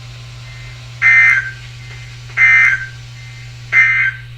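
Three short bursts of EAS/SAME digital data tones from a NOAA Weather Radio broadcast, a warbling two-tone screech at about 1.5 and 2 kHz, each about half a second long and evenly spaced; three bursts right after the spoken warning text are the end-of-message signal. A steady low hum runs underneath.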